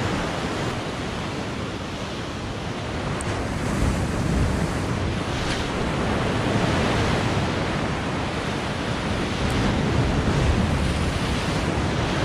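Ocean surf breaking and washing over a rocky lava shoreline, a continuous hiss of foam that swells as each wave comes in, with wind rumbling on the microphone.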